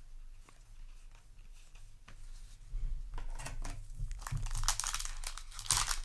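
Foil wrapper of a Yu-Gi-Oh! booster pack crinkling and tearing as it is handled and opened, quiet at first and louder from about halfway through.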